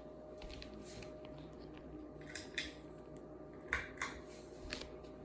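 Hunter Highberry ceiling fan running with a steady hum. Several light clinks and knocks sound over it, the loudest about two-thirds of the way in.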